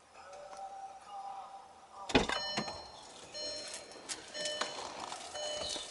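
Inside a car, a heavy thump about two seconds in, like a car door shutting, followed by a run of short high-pitched tones.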